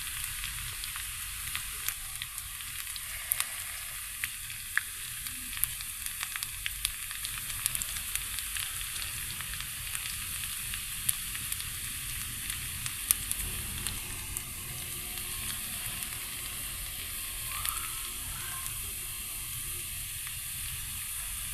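Chopped garlic frying in hot oil for a baghar (tarka), a steady sizzling hiss with many small scattered pops and crackles.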